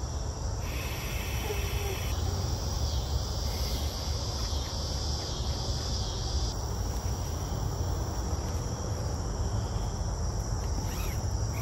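An evening insect chorus of crickets and other insects trilling steadily, with higher buzzing layers switching on and off every second or few, over a steady low rumble.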